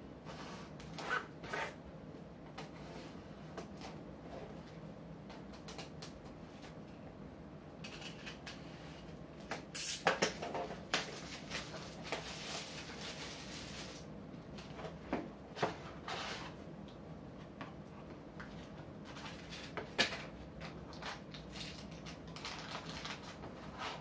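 Small cardboard boxes being slit open and unpacked by hand: a blade scraping along the box, cardboard flaps and packing rustling, and scattered light knocks on the tabletop. The loudest part is a few seconds of tearing and rustling starting about eight seconds in.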